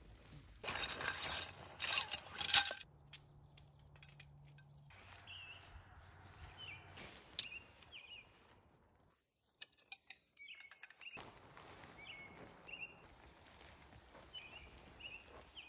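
Tent fabric rustling loudly for about two seconds near the start, then a bird calling repeatedly in short chirps over quiet forest ambience.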